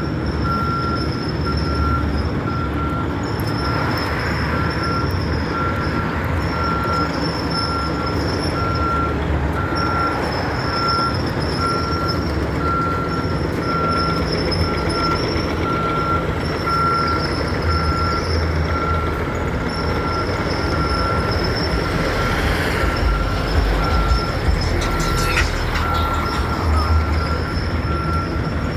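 Heavy diesel machinery of an asphalt milling machine running steadily, with a backup alarm beeping about once a second throughout. A short squeal comes near the end.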